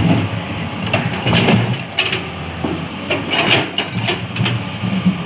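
Komatsu hydraulic excavator's diesel engine running with a steady hum, with irregular knocks and scrapes over it.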